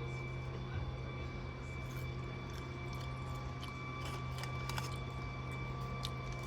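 A steady low hum throughout, with faint scattered soft clicks and crunches of someone chewing fries.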